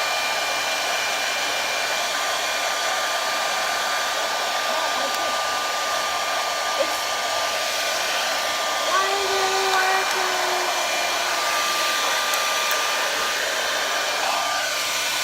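Handheld hair dryer blowing on a steady high setting, its nozzle pushed into a cut plastic water bottle holding damp, twisted hair. It makes a steady rushing whoosh with a faint constant whine.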